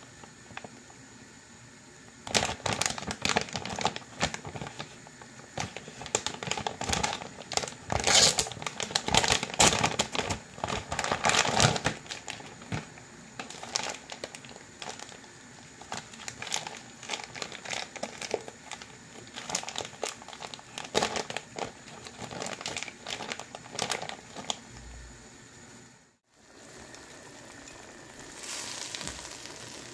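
Plastic noodle packaging crinkling and rustling in irregular bursts as the packs of wok noodles are handled and opened, loudest about a third of the way in. After a brief dropout near the end, faint sizzling of food frying in a wok.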